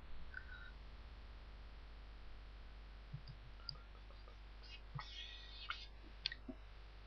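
Faint room tone through a desk microphone, with a steady low mains hum and a few sparse, faint clicks. A short soft hiss comes about five seconds in.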